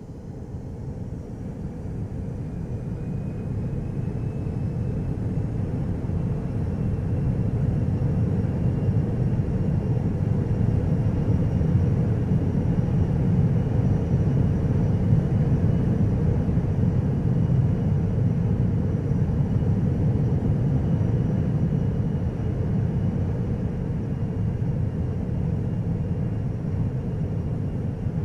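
Jet engine spooling up: a low rumble builds over the first several seconds and then holds steady, with faint high whines slowly rising in pitch.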